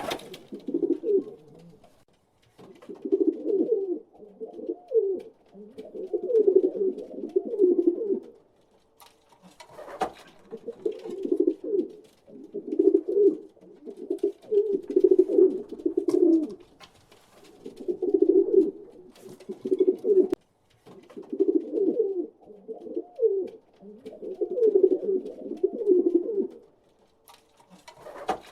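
Pigeons cooing in repeated phrases a few seconds long with short pauses between them, with a few brief sharp clicks now and then.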